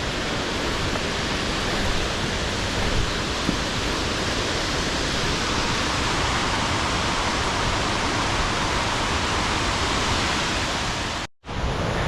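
Steady rushing of a waterfall, an even roar of falling water, which cuts out for a moment near the end.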